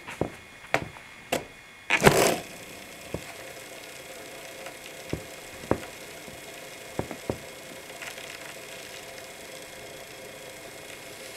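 A few light clicks, then about two seconds in a short loud rush as a hand flicks a Sector Nine longboard wheel into spin. After that the wheel spins freely on nearly new, solvent-cleaned Bones Reds bearings with a faint steady whir, broken by a few scattered light clicks.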